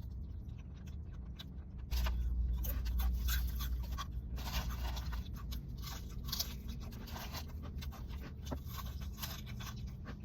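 A person chewing and crunching food close to the microphone, with irregular crunches and scraping sounds over a low steady hum that gets louder about two seconds in.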